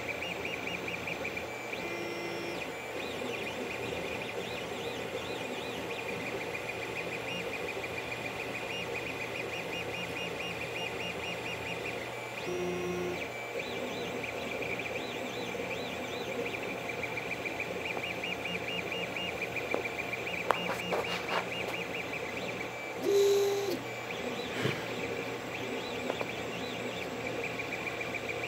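Creality CR-10 3D printer running mid-print: its stepper motors give off high, rapidly pulsing chirping tones as the print head moves, over a steady low hum. A few short, louder moves break in, the loudest about 23 seconds in.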